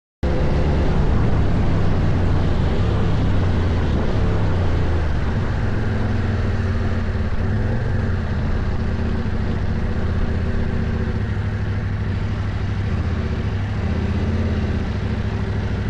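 CFMOTO Ibex 800T adventure motorcycle's parallel-twin engine running steadily under way, with wind and riding noise over it. The sound cuts in suddenly at the start and the engine note shifts a little in pitch now and then.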